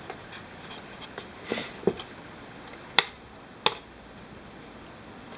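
Hands handling a plastic digital kitchen scale on a table: a few soft knocks, then two sharp clicks a little under a second apart near the middle.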